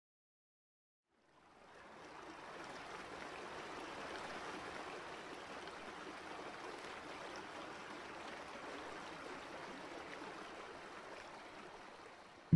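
Steady rush of flowing water. It fades in after about a second of silence and eases off slightly near the end.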